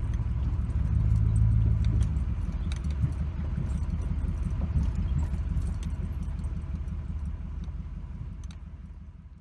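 Engine of a vehicle towing a loaded grain wagon, running steadily with a low hum and constant light rattling and jingling; the sound fades off over the last few seconds.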